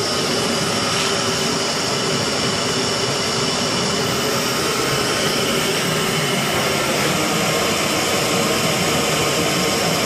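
Steam boiler's burner running with a steady roar and a faint steady hum as the boiler heats up, with steam pressure just starting to build.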